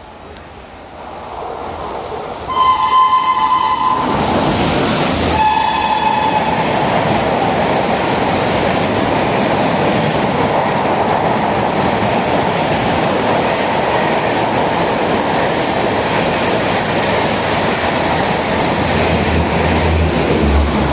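WAP-5 electric locomotive sounding its shrill horn in two blasts, a longer one about two and a half seconds in and a shorter one near six seconds. Then the express train passes through at speed with a steady rush of wheel and rail noise.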